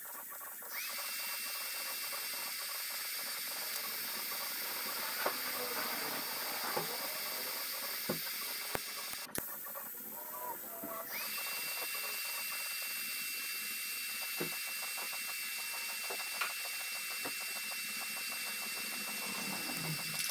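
TIG welding arc on an exhaust muffler: a steady high hiss with a thin electronic whine, breaking off briefly about halfway and starting again, with a few faint ticks.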